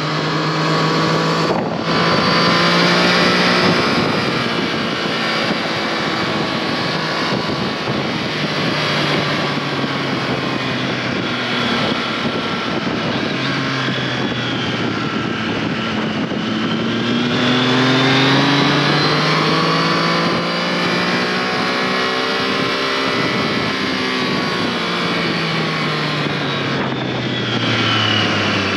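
Triumph Tiger Sport 660's three-cylinder engine and exhaust under way through bends. The revs rise and fall with the throttle: they drop around the middle, climb again, and fall away near the end. There are brief breaks in the sound about two seconds in and again near the end.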